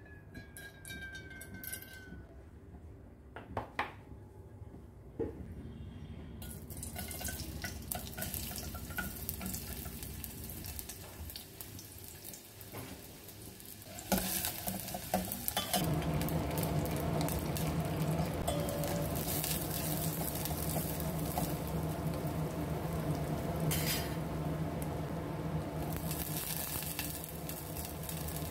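Oil in a stainless steel pot on a gas stove starts to sizzle, then gets much louder about halfway through as chopped onion goes in and fries, with a steel spoon clinking and scraping against the pot. The frying runs on steadily over corn and carrot pieces, with a steady low hum underneath.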